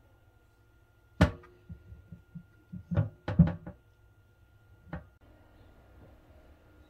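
Hard-skinned squashes knocking on a wooden cutting board as they are set down and handled: one sharp knock about a second in, a run of light taps, several louder knocks around three seconds, and a last knock near five seconds.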